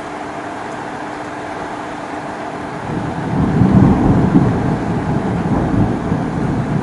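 A low roll of thunder swells in about three seconds in, loudest a second later, then slowly dies away over a steady background hiss.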